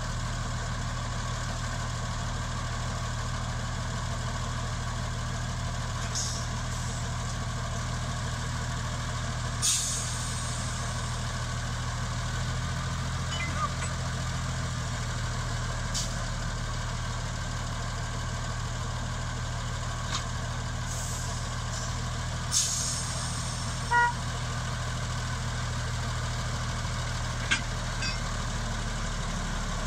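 Mk48 narrow-gauge diesel locomotive's engine running steadily at low speed, a low even hum. A few short sharp hisses and one brief pitched blip break in over it.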